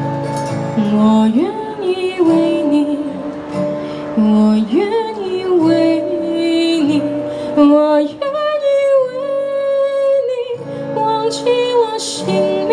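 A woman singing a slow ballad melody live with acoustic guitar accompaniment, her voice sliding between notes and holding a long wavering note a little past halfway.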